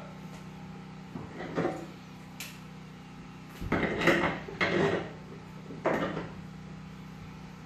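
Wrench turning a nut down on a lag bolt to tighten a window brace: four short metallic strokes, one about a second and a half in and three more from about four seconds on.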